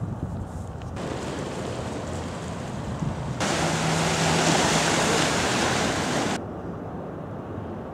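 Outdoor wind and waves, with wind buffeting the microphone. The steady noise steps up suddenly about three and a half seconds in and drops just as suddenly about six and a half seconds in, as the footage is cut.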